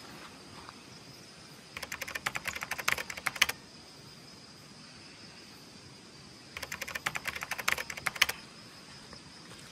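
A night-calling animal, insect or frog, giving two rapid clicking trills of about two seconds each, several seconds apart, over a faint steady high-pitched insect drone.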